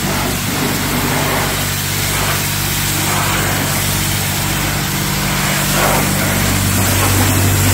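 A self-service car wash's high-pressure washer: the pump runs with a steady low hum while the water jet hisses against a car's bodywork.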